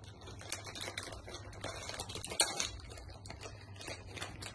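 Rustling and many quick small clicks of a freshly cut-open plastic candy bag being handled and its pieces shaken about, over a steady low hum.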